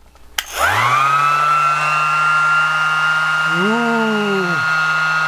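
Hart 20V cordless random orbital sander switched on with a click, its motor spinning up within about half a second to a steady whine, running free in the air with no work under the pad. Not extremely loud.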